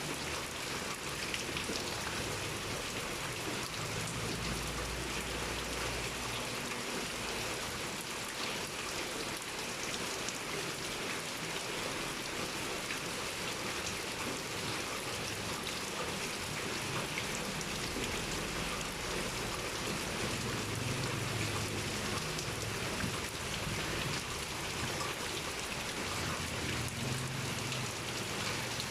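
Pouring rain falling steadily: a dense, even hiss with the patter of individual drops striking a surface.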